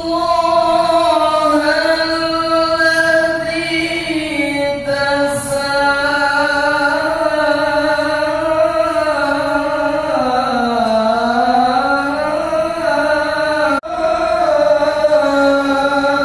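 Quran recitation in melodic tilawah style by a single voice through a microphone and loudspeaker, long held notes sliding slowly up and down. The voice breaks off for a moment about fourteen seconds in.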